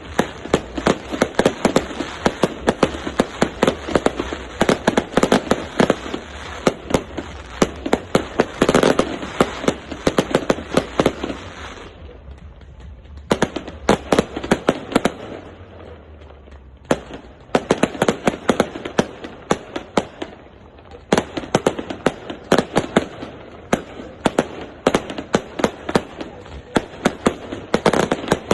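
Fireworks display: rapid volleys of sharp bangs and crackling reports, many per second. They thin out to scattered cracks about halfway through, then build back into dense volleys.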